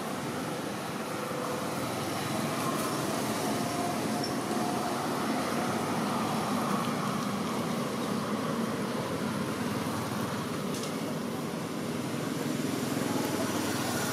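Steady outdoor background noise: the even rumble of distant road traffic.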